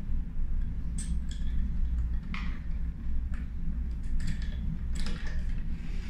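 Scattered light metallic clicks and taps as a door lock's exterior handle is fitted against the latch, its connecting screws passing through, over a steady low hum.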